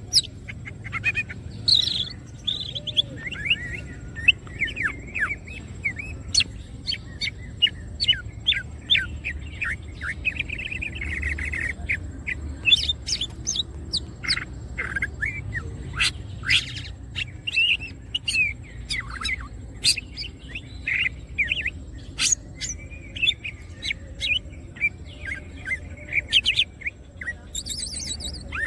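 Green leafbird (cucak ijo) singing in full song: a rapid, unbroken stream of varied chirps, short whistled slurs and sharp clipped notes, over a steady low hum.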